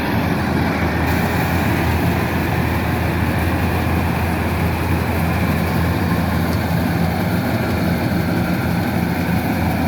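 Kubota DC-105X combine harvester running steadily under load, its diesel engine humming continuously together with the noise of its harvesting machinery.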